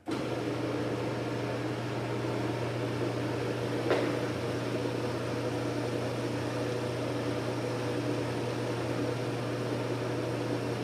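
1997 Chamberlain Liftmaster screw drive garage door opener running with a steady electric motor hum, driving the trolley along the screw with the door detached, on a freshly replaced motor coupler. One sharp click about four seconds in.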